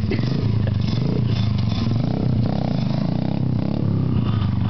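Small dirt bike engine running steadily at low revs.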